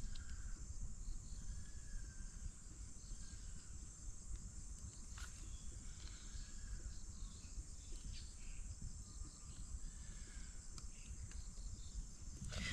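Rural outdoor ambience: a steady high-pitched chorus of crickets and other insects, with occasional short bird chirps and a few faint clicks.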